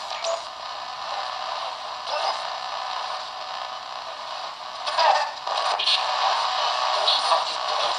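Ghost box, an AM radio modified to scan continuously across the stations, hissing and crackling through a small portable speaker, with short louder bursts as it sweeps past stations.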